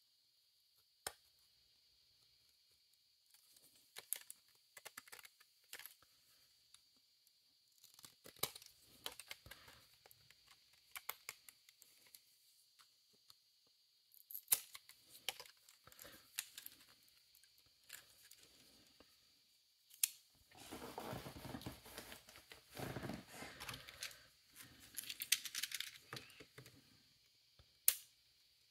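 Hand tools working on 3D-printed plastic parts: scattered small clicks and snaps, then a few seconds of scraping against the plastic about two-thirds of the way through, and a sharp click near the end.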